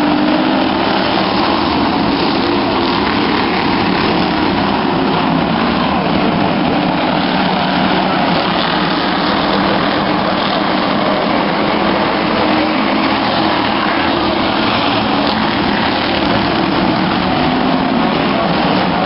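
A pack of stock car engines running together on an oval track: a loud, unbroken drone.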